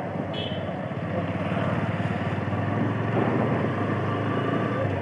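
TVS Apache RTR 160 motorcycle's single-cylinder engine pulling away and gaining speed, heard from the rider's seat with road and wind noise, getting gradually louder.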